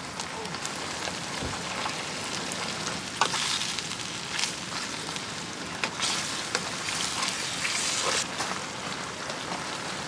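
Sliced onions sizzling as they fry in a stainless steel pot, stirred with a wooden spatula. The sizzle swells louder twice, about three seconds in and again from about six to eight seconds, with a few light clicks of the spatula on the pot.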